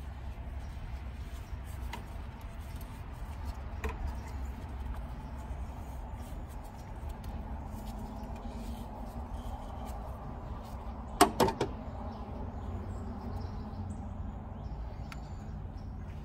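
Hand work at an engine's cylinder head over a steady low hum: light handling noises, then a quick run of three or four sharp clicks about eleven seconds in, the loudest sound.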